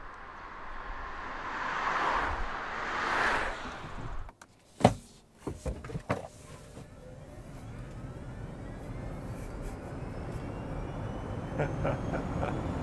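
Single-motor Kia electric vehicle accelerating hard from a stop: the electric motor's whine climbs steadily in pitch over several seconds while tyre and road noise builds. Earlier there is a swelling rush of noise and a few sharp clicks about five seconds in.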